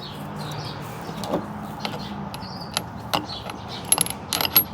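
Light metallic clicks and clinks at irregular intervals, more of them close together near the end: parts and tools being handled while an angle grinder's cutting wheel is swapped for a grinding wheel.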